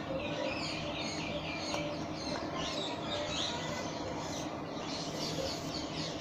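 Small birds chirping and twittering continuously in the background, over a steady low hum.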